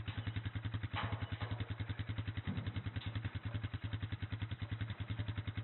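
ATV engine idling with a steady, even pulse, and a brief rattle about a second in.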